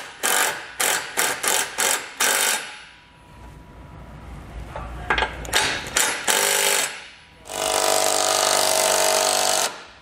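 Milwaukee cordless impact driver snugging the bolts that join a tow base plate's cross member to its side brackets. It goes in a quick string of short bursts, then a lull, then a few more bursts, and ends with one steady hammering run of about two seconds near the end.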